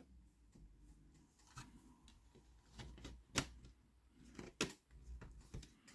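Faint handling clicks of a DVD disc and its plastic mediabook tray as the disc is put back onto the tray, with a sharper click about three and a half seconds in and another about a second later.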